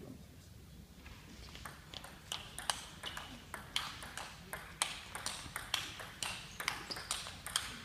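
Table tennis rally: the ball clicking sharply off the bats and bouncing on the table, a quick run of ticks about two or three a second. It starts about a second and a half in and stops near the end.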